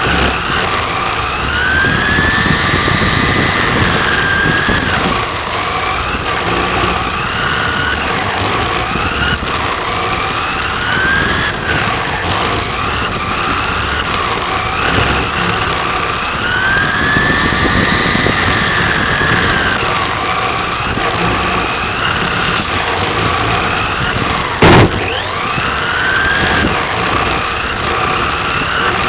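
Onboard sound of a 1/10-scale VTA electric RC touring car at racing speed: the brushless motor and drivetrain whine rises and falls in pitch as it accelerates and brakes around the laps, over steady rattling and tyre noise. A brief loud burst comes about 25 seconds in.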